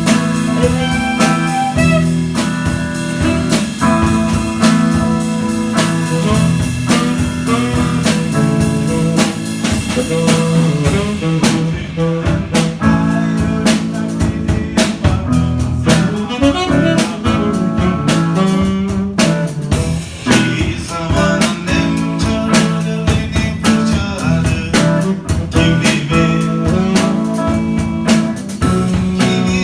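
Live jazz improvisation on saxophone and guitar, with drums keeping up a busy beat.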